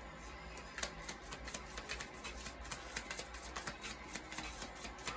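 Tarot deck being shuffled by hand: a quick, irregular run of soft card clicks and flicks, several a second.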